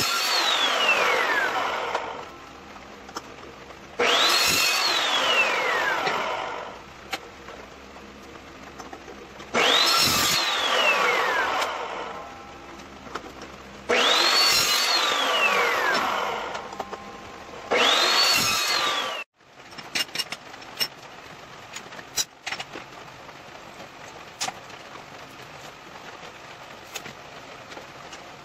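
Evolution metal-cutting chop saw run five times, about four seconds apart. On each run the motor whine climbs as the blade spins up, then falls as it coasts down. The last run stops abruptly, followed by a few light clinks of handling.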